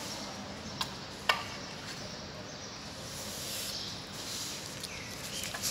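Steady outdoor ambience on a paved city square, with two sharp clicks about a second in, the second the loudest, and a brief falling high-pitched sound near the end.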